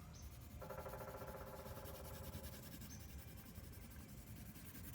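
Coloured pencil scratching and rubbing on paper, faint, as it shades an area in quick back-and-forth strokes.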